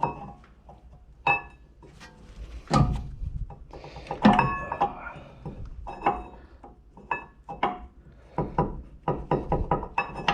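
New rear brake pads clinking and knocking as their steel backing plates are pushed into the caliper carrier's pad clips: a run of short metallic clicks and knocks, several with a brief ring.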